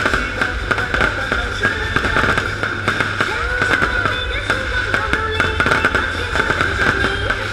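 Fireworks crackling and popping in a rapid, dense stream of sharp cracks, with music playing at the same time.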